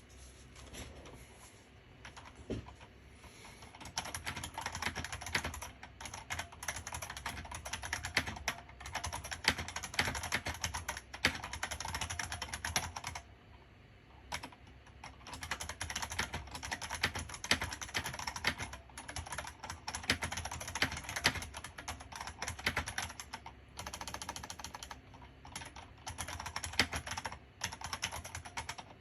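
Typing on an IBM Model M60 mechanical keyboard: a fast, continuous run of key clicks, with short pauses about a third of the way in and again a little over three quarters of the way in.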